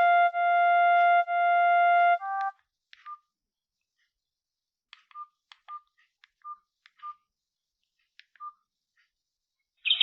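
Maxvi C15 feature phone's loudspeaker playing the end of a preset ringtone, a synthesized melody of long held notes that stops about two seconds in. Then come scattered short clicks with faint brief beeps as the next ringtone is picked, and a loud new tone starts right at the end.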